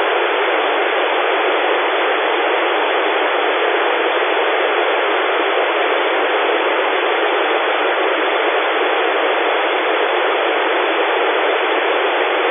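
Steady hiss of an FM receiver (Airspy Mini SDR in narrow-band FM) with no signal on the International Space Station's 145.800 MHz downlink: unsquelched receiver noise while the astronaut's transmission is off between her answers.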